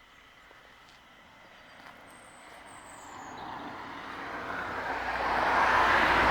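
A vehicle approaching, its noise swelling steadily from faint to loud with no distinct engine note.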